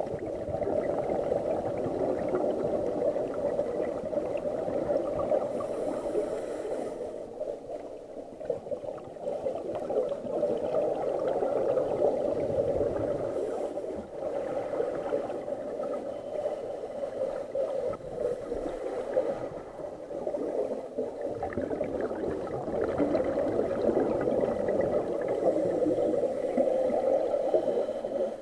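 Muffled underwater noise picked up through a camera's waterproof housing: steady gurgling and rushing of water and bubbles, dipping briefly every several seconds.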